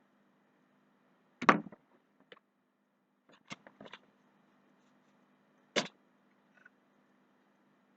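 Handling noise from unboxed items being picked up and set down: a sharp knock about one and a half seconds in, a cluster of small clicks and taps around three and a half to four seconds, and another sharp knock near six seconds, over a faint steady hum.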